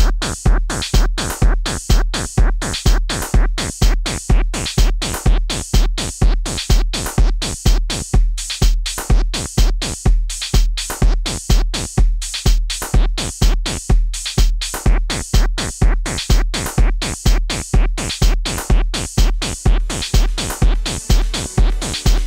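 Electronic dance music with a drum-machine kick on every beat, about two a second, under a dense synthesizer mix.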